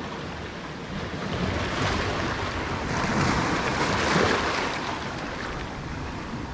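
Waves washing over and draining off shoreline rocks, swelling to a peak about three to four seconds in, with wind buffeting the microphone.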